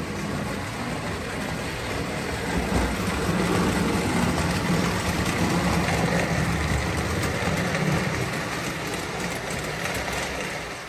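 Two prewar American Flyer O-gauge toy locomotives running together, their electric motors and gearing humming and wheels rumbling on metal track as the train passes, louder in the middle and easing off near the end.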